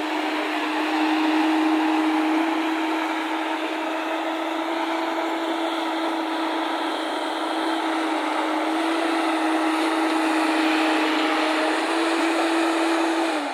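JCB tracked excavator's diesel engine running steadily at working revs while digging and swinging a bucket of soil, with a constant hydraulic whine over it. It stops abruptly near the end.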